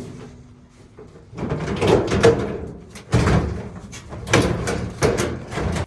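Dryer sheet-metal panel being lifted and pulled off the cabinet. It makes a series of rough metallic scrapes and clunks, about five of them.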